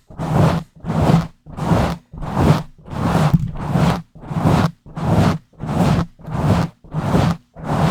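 A microphone being scratched and rubbed directly by hand in fast, rough strokes, about two a second. Each stroke is a scraping rasp that stops short, with brief gaps between.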